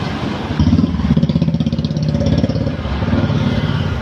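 Engine of a road vehicle, such as a motorcycle, running with a steady pulsing beat. It grows louder about half a second in and eases off near the end.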